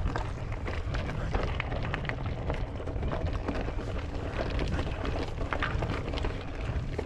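Mountain bike riding down a dirt and rock singletrack: tyres rolling over dirt and loose stones with many short clicks and rattles from the bike, over a steady low rumble of wind on the camera's microphone.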